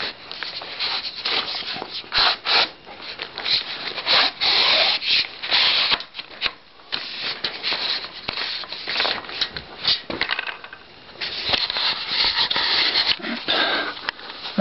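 Irregular rustling and crinkling of a plastic bag, with handling scrapes, as the telescopic pole of an electric pole chainsaw is pulled out to full extension.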